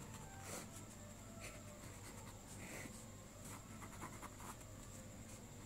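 Faint scratching of a pen on paper as lines and zigzag resistor symbols are drawn in short, irregular strokes.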